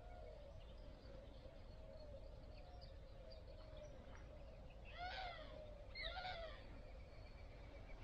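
Faint chorus of wild animal calls in woodland: soft repeated chirping calls with a quicker pulsed trill higher up, then two louder rising-and-falling calls, about five and six seconds in.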